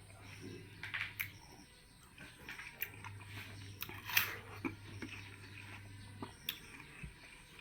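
A person biting and chewing watermelon: scattered short, wet crunches, the loudest about four seconds in.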